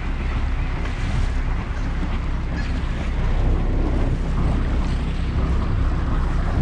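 A boat's engine running steadily under way, with water rushing past the hull and wind buffeting the microphone.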